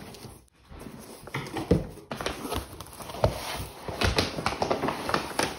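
Plastic mailer and packaging crinkling and rustling as a parcel is opened and unpacked by hand, with irregular crackles and clicks.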